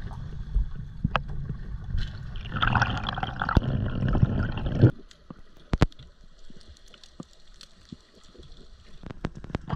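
Water gurgling and rushing around an underwater camera, cutting off suddenly about five seconds in. After that it is quiet underwater, with scattered sharp clicks that grow more frequent near the end.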